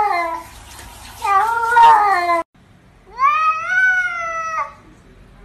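Domestic cats meowing: two drawn-out, wavering meows, then, after a cut, a tabby's single long meow that rises in pitch and holds before stopping abruptly.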